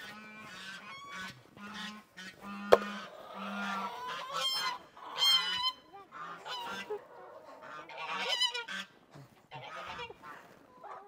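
Domestic geese honking repeatedly, several calls overlapping, with a single sharp knock about three seconds in.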